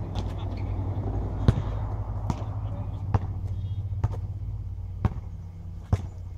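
Basketball bouncing on an asphalt court, six sharp bounces at a steady pace of about one a second, over a steady low rumble.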